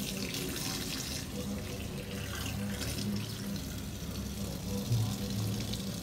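Tap water running into a stainless steel sink and splashing over snakehead fish being rinsed by hand.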